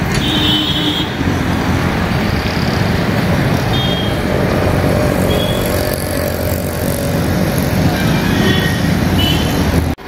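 Mitsubishi Pajero Sport's engine running as the SUV is driven slowly onto the wheel-alignment ramp, over a steady din of street traffic, with a few short high tones.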